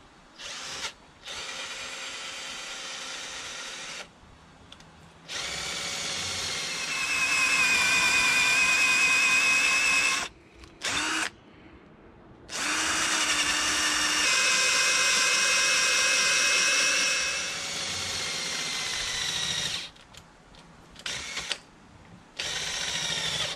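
Cordless drill with a long twist bit boring out the old handle wood from the eye of a Hults Bruk axe head, run in repeated bursts of a steady whine. The two longest runs come in the middle, each several seconds, followed by a few short blips near the end.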